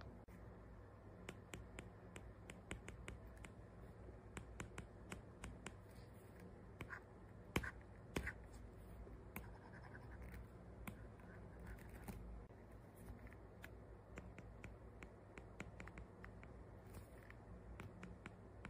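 Metal (nickel-plated alloy) stylus tip on an Apple Pencil tapping and scratching across a tablet's glass screen while writing and drawing lines: a string of faint, quick ticks, with two louder clicks about halfway through.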